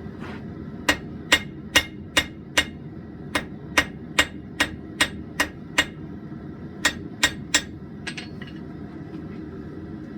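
Blacksmith's hand hammer striking hot steel from a concrete drill bit on an anvil, forging it, at about two to three blows a second in three runs of five, seven and three. Two lighter taps follow, all over a steady low hum.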